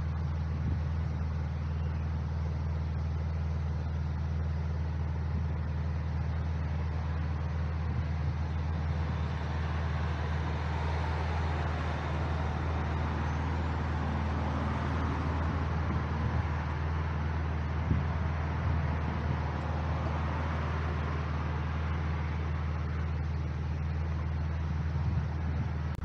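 Steady low engine hum of cars idling on the street, with a broader rushing sound swelling and fading over the middle stretch.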